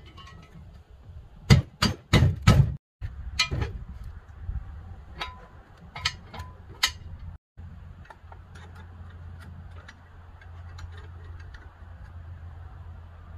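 Knocks and clanks of steel jack stand parts being worked on: a quick run of four loud knocks about one and a half seconds in, then scattered lighter knocks and ticks, over a low steady hum.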